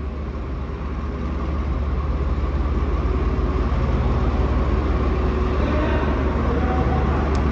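Swaraj 855 tractor's three-cylinder diesel engine running with a steady low throb, growing louder over the first couple of seconds as the tractor moves in.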